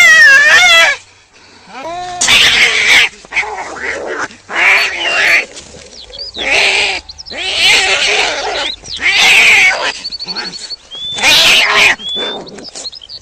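Cat calling repeatedly: a wavering meow at the start, then about six loud, harsh, rasping cries of roughly a second each, with short gaps between them.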